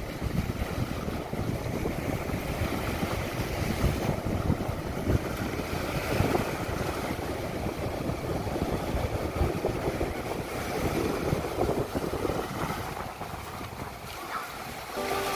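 Wind buffeting the microphone in uneven gusts over a steady rushing noise, easing off near the end.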